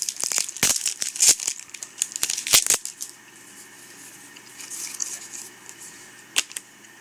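Foil Yu-Gi-Oh booster pack wrapper being torn open and crinkled, a rapid run of sharp crackles that stops about three seconds in. Softer rustling follows, with a single click near the end.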